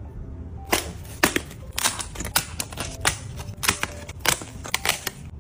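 Quick, irregular crisp clicks and snaps of small pieces being pushed out of a punch-out 3D castle puzzle sheet, about a dozen, starting about a second in.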